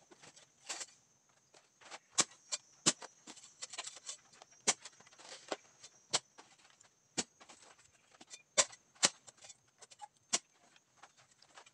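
Long-handled hoe chopping into turf and soil, about a dozen sharp, irregular strikes roughly a second apart.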